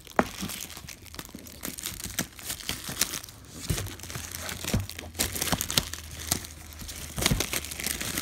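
Clear plastic wrap being torn and peeled off a box by hand, crinkling and crackling irregularly, with a sharp snap just after the start.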